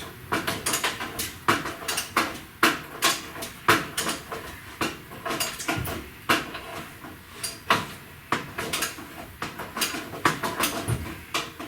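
Irregular metallic clicks and knocks, a few a second, from a hand wrench working a core support bolt loose.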